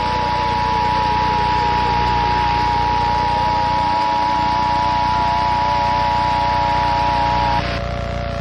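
Emergency Alert System two-tone attention signal: two steady high tones sounding together, cutting off sharply about seven and a half seconds in. A steady hiss and a lower hum run under it and carry on after the tone stops.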